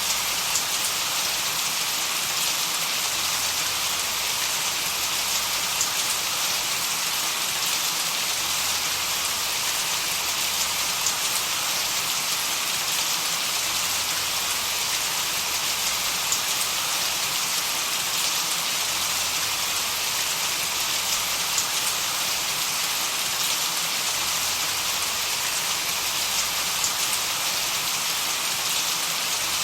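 Steady, even hiss of white noise that sounds like rain, with faint scattered ticks like drops, used to mask tinnitus.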